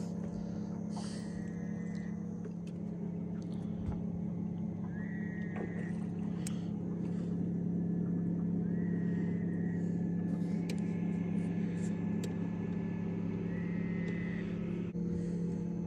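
The boat's small engine running at a steady, even hum with no change in pitch. Four short, faint high chirps come every few seconds over it.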